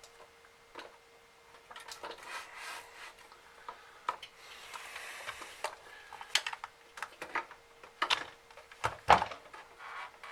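Plastic housing parts of an opened vacuum cleaner being handled by hand: scattered clicks and scraping rubs, with a louder knock about nine seconds in.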